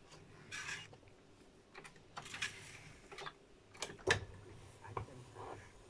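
Clicks and light knocks of a plastic tape reel being fitted and handled on a reel-to-reel tape recorder's spindle. About four seconds in comes a sharper clack as a piano-key transport button on the Elfa deck is pressed.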